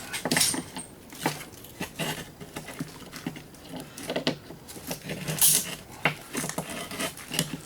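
Small metal parts and tools from a dismantled electric can opener being handled and set down, making irregular clicks, taps and light clinks.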